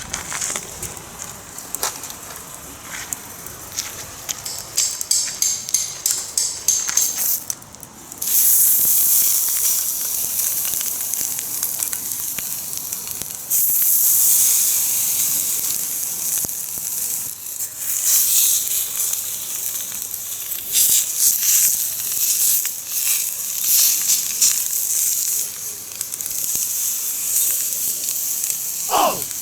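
Wood fire crackling in small clicks. About eight seconds in, a loud sizzling starts suddenly as salted salmon belly fries in a hot pan, shallow-frying in the fat it gives off. The sizzling swells and ebbs.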